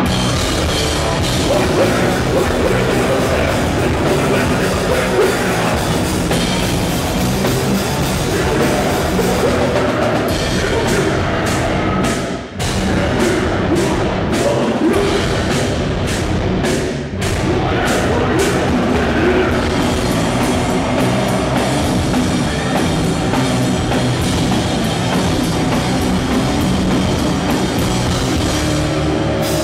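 Metalcore band playing live: electric guitars over a drum kit, loud and dense, with two brief breaks about twelve and seventeen seconds in.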